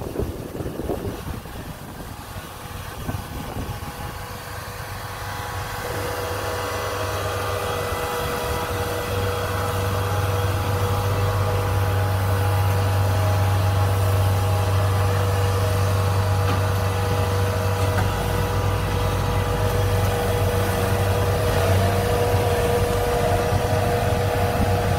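Kubota DC-70 combine harvester's diesel engine running steadily with a steady whine over its hum. It grows louder over the first ten seconds and then holds level.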